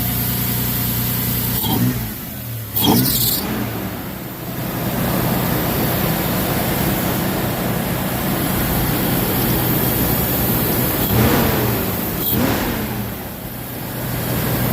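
Toyota 3.4 V6 (5VZ-FE) in a 4Runner, breathing through an aftermarket cold air intake with a K&N filter, running at idle. It is revved in two quick pairs of blips, about two seconds in and again around eleven seconds, each rising and then falling back to idle.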